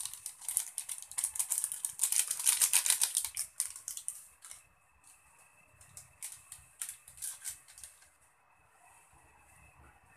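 Seasoning granules poured from a plastic sachet onto dried anchovies and grated coconut in a wok: a rapid, dry, crackling patter, densest in the first four seconds. A few sparse clicks follow, and a faint steady high tone comes in about four and a half seconds in.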